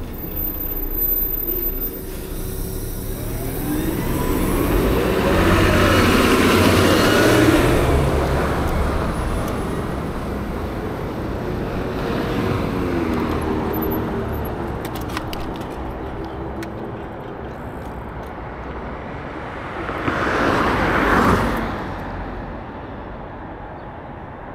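Road traffic: cars passing close by over a steady road hum. One swells and fades about five to eight seconds in, and another passes more briefly about twenty seconds in.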